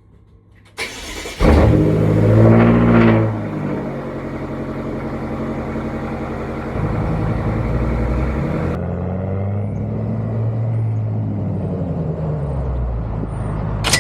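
A BMW's engine starting with a rev flare that rises and falls, then settling into a steady idle with a couple of slow, gentle swells in pitch.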